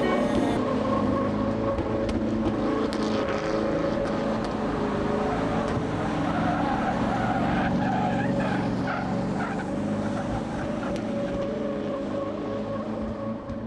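Drift cars sliding through a corner, engines running hard and tyres skidding. The sound fades out near the end.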